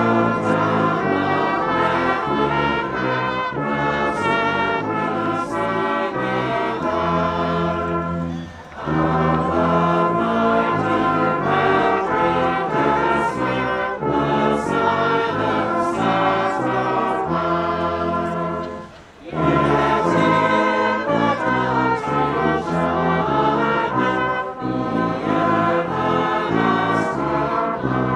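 Brass band playing a carol in held phrases, with the crowd's voices singing along. The music pauses briefly twice, between lines.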